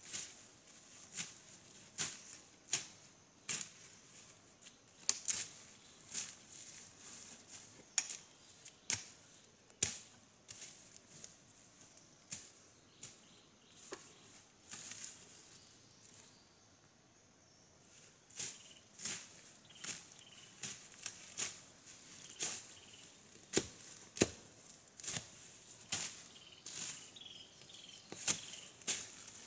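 Ferns and undergrowth being cut and cleared by hand: a string of sharp snapping cuts, about one or two a second, with a pause of a couple of seconds just past the middle.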